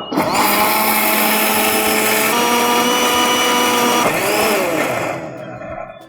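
Electric mixer-grinder running at full speed, grinding a coconut and whole-spice masala with a little water into a fine paste. The motor's pitch dips slightly partway through, and about four seconds in it is switched off and spins down with a falling whine.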